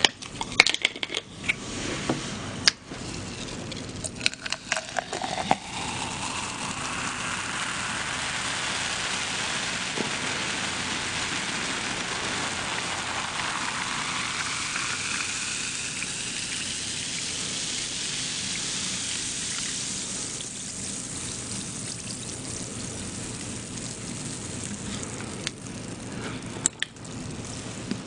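Cola poured from a bottle into a tall glass, the pouring sound rising in pitch as the glass fills, then the drink fizzing in the glass. A few clicks from handling come before the pour.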